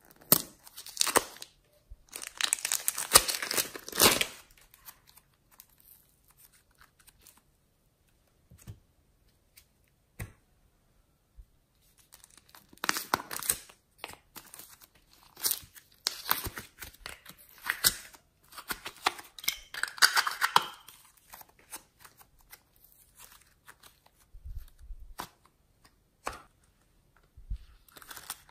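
Plastic wrapping and slime tubs being handled and opened by hand: crackly crinkling and tearing of plastic film in bursts, with quiet gaps between.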